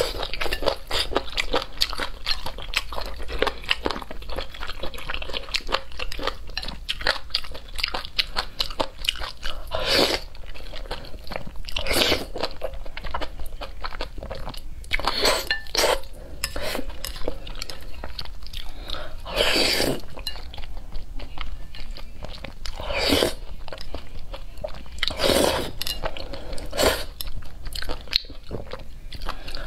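A mouth chewing and slurping spicy noodles: continuous wet chewing clicks, with about seven longer, stronger slurps spread through.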